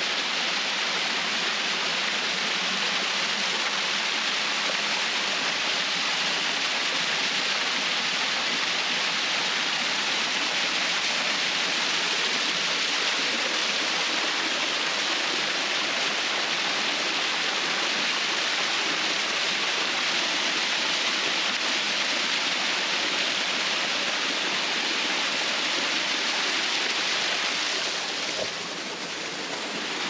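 Steady rushing of water in a small mountain stream tumbling over rocks, dipping slightly for a moment near the end.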